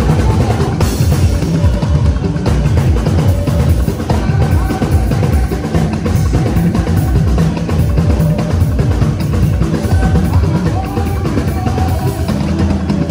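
Live band music with a drum kit playing a steady, busy groove and a Yoruba talking drum playing along.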